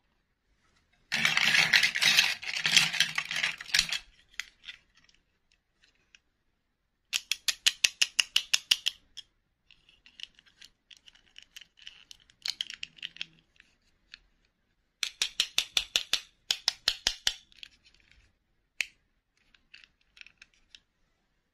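Small plastic princess dolls and their soft plastic clip-on dresses being handled. A burst of rubbing and scratching, then two runs of rapid clicking taps, with quieter scratches between.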